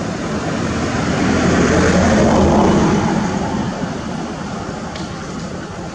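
A passing engine: a steady motor noise that swells to its loudest about two seconds in and then fades away.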